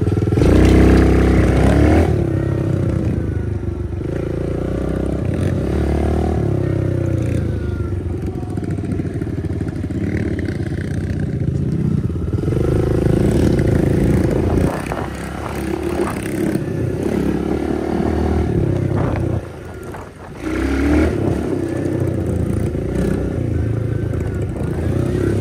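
A Kawasaki KLX110 pit bike's small single-cylinder four-stroke engine revving up and down while being ridden. It is loudest on a rev about a second in, and drops off briefly about twenty seconds in before picking up again.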